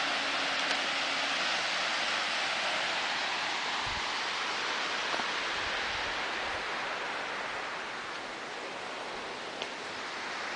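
Steady rushing hiss of a tall waterfall plunging down a canyon wall, growing a little fainter in the second half.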